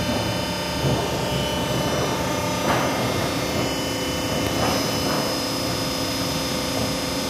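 Roll-forming machine for rib-type colour roofing sheet running with a steady mechanical hum, and a few knocks as the metal sheet is handled at the feed end.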